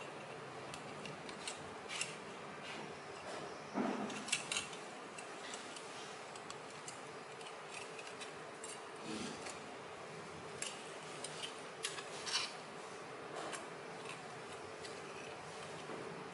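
Thin aluminium strips cut from a drink can being bent and curled by hand: scattered light clicks and crinkles, in small clusters about four seconds and about twelve seconds in, over a faint steady hum.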